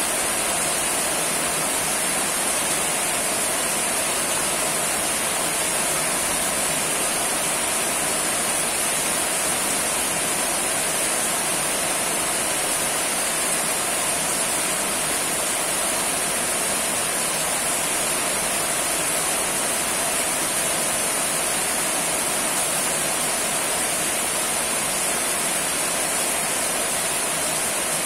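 Steady rain falling, an even hiss that holds the same level throughout, with no separate drips or gusts.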